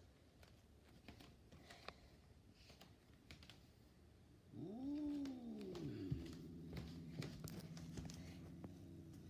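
Domestic cat growling: about four and a half seconds in, a short yowl that rises and falls in pitch, then settles into a low, steady growl that is held to the end.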